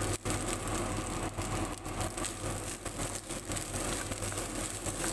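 Leftover rice stir-frying in a nonstick pan: a steady sizzle with the spatula scraping and tossing it, over a steady low hum.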